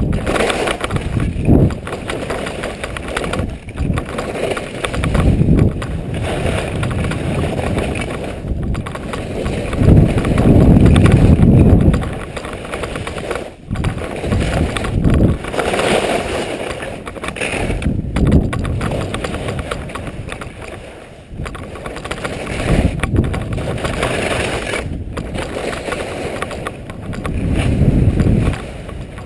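Wind rushing over an action camera's microphone during a fast run down a snow slope, with heavy low rumbling gusts about ten seconds in and again near the end. Underneath is the hiss and scrape of edges carving through snow, dipping briefly between turns.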